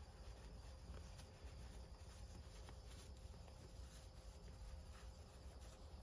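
Near silence: room tone with a steady low hum and a few faint ticks.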